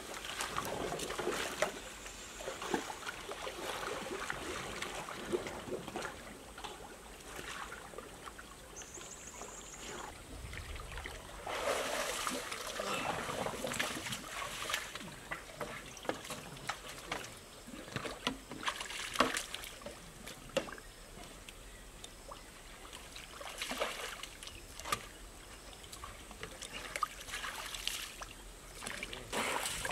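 Water sloshing and splashing around a bamboo raft as it is pushed through muddy shallows and then paddled with a bamboo pole, in irregular swells of splashing with occasional short sharp knocks.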